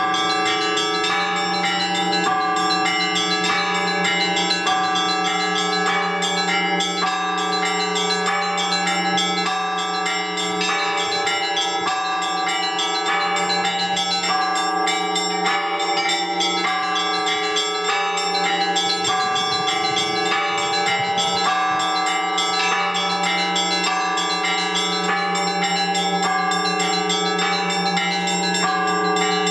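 Orthodox church bells rung in a continuous peal: a quick, evenly repeating pattern on the smaller bells over the steady ring of the larger, lower bells.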